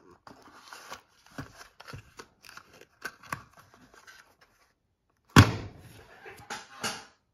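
Cardboard ammunition box and its plastic cartridge tray being handled: rustling and scraping as the tray slides in and the flap is tucked shut, then a loud thump about five seconds in as the box is set down on a wooden table, followed by a few small knocks.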